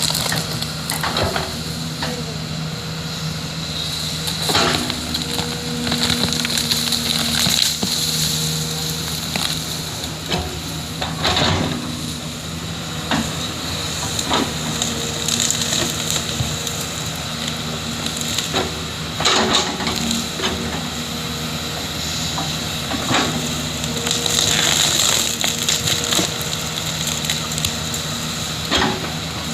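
JCB 3DX backhoe loader's diesel engine running under load, its drone stepping up and down in pitch as it works the hydraulics, with a sharp clank or crunch every few seconds as the bucket cuts and scrapes the earth.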